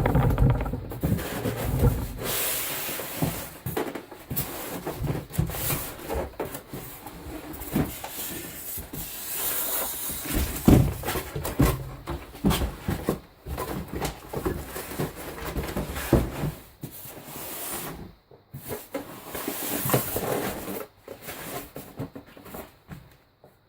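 Cardboard box and packing material rustling, scraping and knocking irregularly as a sewing machine is worked out of its shipping box, with a few sharper knocks.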